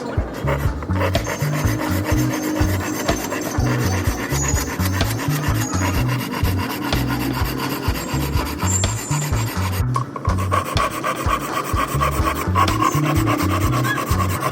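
Wood being shaped by hand with a rasp: continuous rubbing, scraping strokes against the wood.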